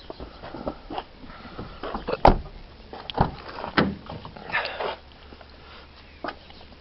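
A few scattered knocks and clicks, the loudest a sharp knock about two seconds in, with a short rustle a little before the five-second mark.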